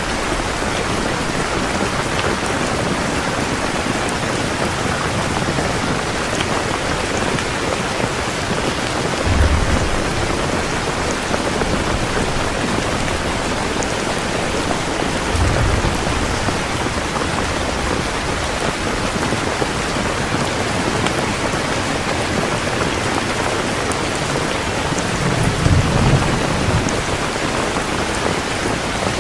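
Heavy rain falling steadily, with brief low rumbles of thunder about a third of the way in, around halfway, and a longer one near the end.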